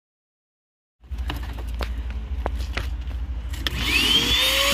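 After a second of silence, a few plastic clicks and knocks come as the hose and parts are fitted to a small red wet/dry shop vacuum. Near the end its motor switches on, spinning up with a rising whine, and runs steadily.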